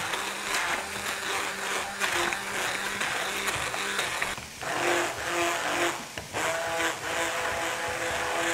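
Handheld immersion blender running in a pan of cooked potatoes and leek, puréeing them into a cream; the motor note shifts about halfway through as the blade works the mash.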